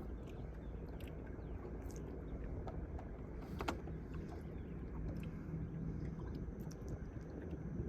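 Steady low rumble of a small fishing boat on the water, with scattered light clicks and taps, one sharper tap about three and a half seconds in.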